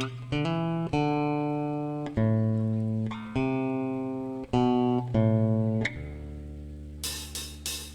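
Electric guitar sounding single notes one at a time, each plucked and left to ring for about a second, as when tuning or checking a guitar between songs. Near the end a low bass note holds and a few quick drum or cymbal hits sound.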